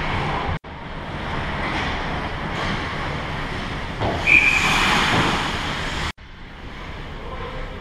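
Ice rink noise of skates and play around the goal, with a knock and then a short, steady referee's whistle about four seconds in, the kind that stops play. The sound cuts out for an instant twice.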